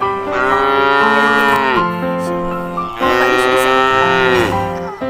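A cow mooing: two long moos, each falling in pitch at the end, over background music.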